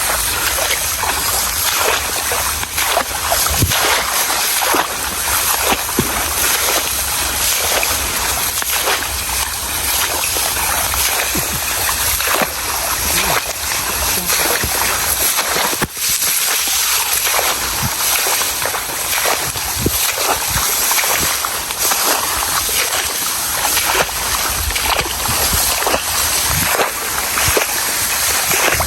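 Water splashing and sloshing, with many small splashes and a brief break about halfway through.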